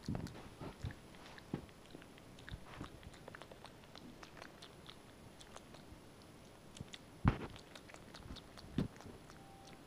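Pet macaque grooming a cat's fur: scattered soft clicks and chewing-like smacks of its lips and teeth picking through the fur. Two louder thumps come about seven and nine seconds in.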